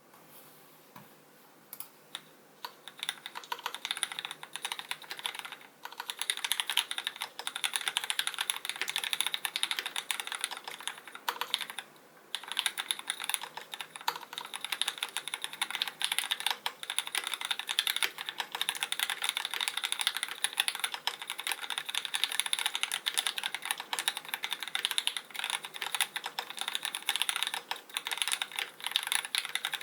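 Custom mechanical keyboard with lubed Cherry MX Black (Hyperglide) linear switches, an aluminium plate and GMK keycaps being typed on. A few single keystrokes come first, then a fast, continuous run of typing, broken by two short pauses.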